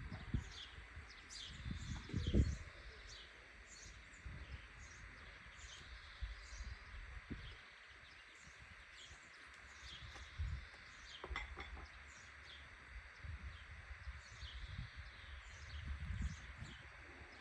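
Small birds chirping over and over, short high calls every second or so, against a steady faint hiss of outdoor background noise. A low thump about two seconds in.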